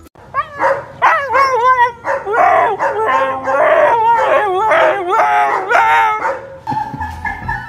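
Husky 'talking': a run of drawn-out, wavering howls that bend up and down in pitch, in several phrases, fading out about six seconds in.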